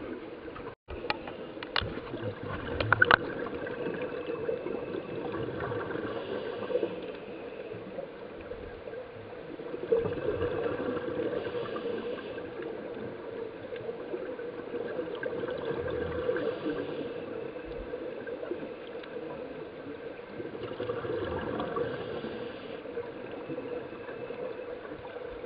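Scuba diver's exhaled bubbles gurgling up from the regulator, heard underwater, swelling about every five or six seconds with each breath. A few sharp clicks come in the first few seconds.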